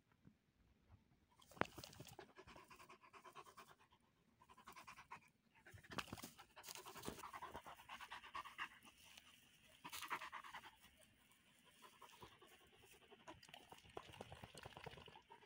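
Pyrenean Mountain Dog panting rapidly and faintly, starting about two seconds in, with a single sharp click just before.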